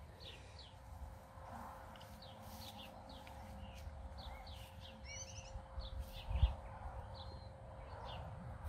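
Small birds chirping and twittering, short bright calls and quick trills every second or so, over a faint steady hum. A low thump sounds about two-thirds of the way through.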